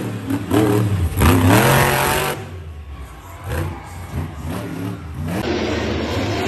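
Monster truck engine revving hard in repeated rising and falling sweeps, easing to lighter revs about two and a half seconds in. Near the end it gives way to a steadier engine run.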